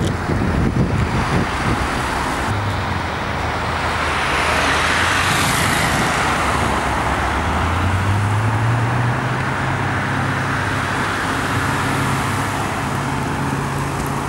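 Ultima GTR's LS7 V8 running at low revs with a pulsing exhaust note in the first couple of seconds, over roadway traffic noise. A vehicle passes about five seconds in.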